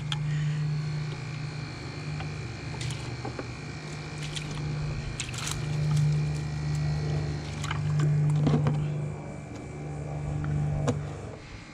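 A motor's steady low hum that swells and fades a few times and stops about eleven seconds in, with a few light clicks and knocks of gear being handled.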